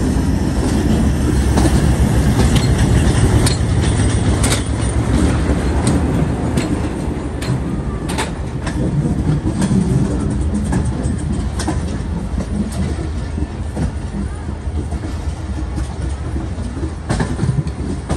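Awam Express passenger train running along the track: a steady low rumble with irregular clicks and knocks from the wheels and carriages.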